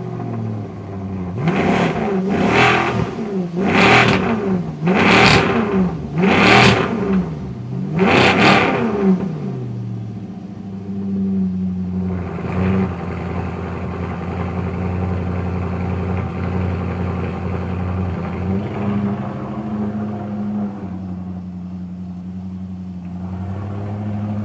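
Sports car engine revved hard about six times in quick succession over the first nine seconds, each rev sweeping up and back down, then running on as a steady low drone.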